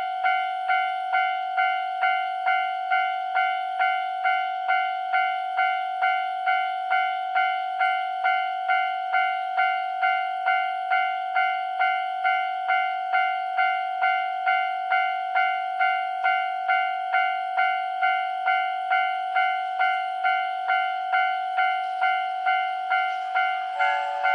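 Japanese railroad crossing warning bell ringing in an even repeating rhythm, about two strikes a second, each strike the same ringing tone. Near the end a train horn starts sounding over it as a train approaches.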